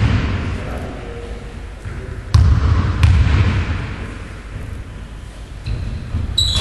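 Basketball bouncing on a hardwood gym floor: two heavy thuds about two and a half seconds in, a little over half a second apart, echoing in the hall.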